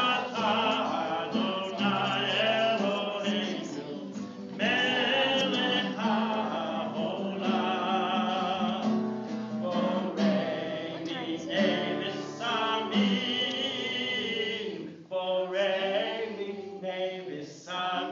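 A man singing a song to acoustic guitar accompaniment.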